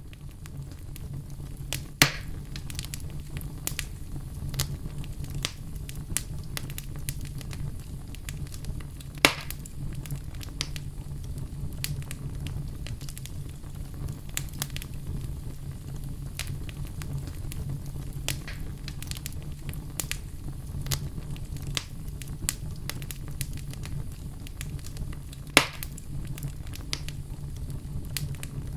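Wood fire burning in a fireplace: a steady low rumble under scattered crackles, with three louder pops, about 2, 9 and 25 seconds in.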